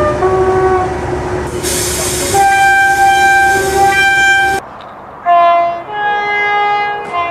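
Locomotive air horn sounding in several blasts over the rumble of a moving train. The longest is a held chord of about two seconds that cuts off abruptly, and another two-second blast follows at a different pitch.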